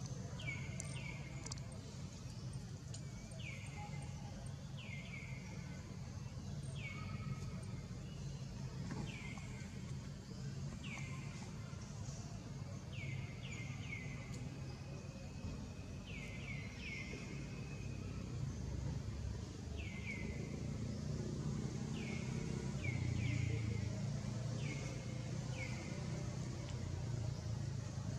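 An animal's short, high-pitched calls, each falling in pitch, repeated about once every second or so and sometimes in quick pairs, over a steady low rumble.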